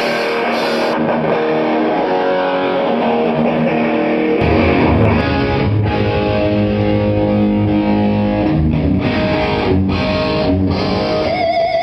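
A rock band playing through the PA during a sound check: strummed electric guitar chords, with the bass guitar coming in about four seconds in.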